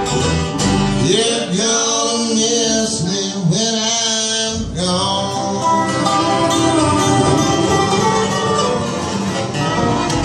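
Live acoustic country band playing: strummed acoustic guitar, upright bass and mandolin, with singing through the middle.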